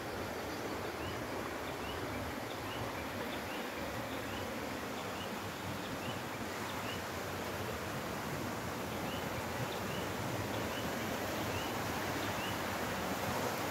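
A rocky mountain stream rushing over stones, a steady hiss that grows slightly louder near the end. Short, high, rising chirps repeat about twice a second in runs over it.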